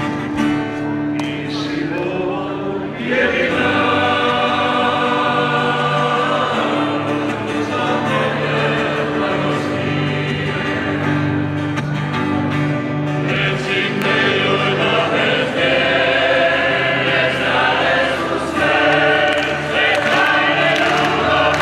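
Large choir of many voices singing together in harmony, holding long chords over a steady low part.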